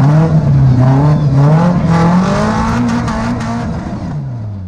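Tubular-frame off-road buggy's engine revving under load: the pitch climbs, holds, then drops away, the sound growing steadily quieter toward the end.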